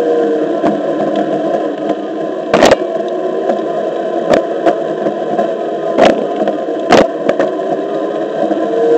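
Onewheel XR electric skateboard riding on a concrete sidewalk: a steady rolling noise with the hub motor's whine, which drops in pitch just after the start and climbs again near the end as speed changes. Three sharp knocks, about two and a half, six and seven seconds in, as the wheel rolls over sidewalk joints.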